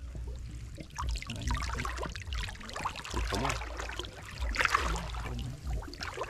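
Shallow pond water splashing and trickling in irregular bursts as a fishing net is worked through it, with the busiest splashing in the middle.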